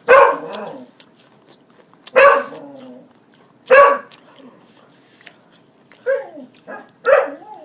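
A dog barking: single loud barks spaced a second and a half to three seconds apart, with two softer barks just before the last loud one.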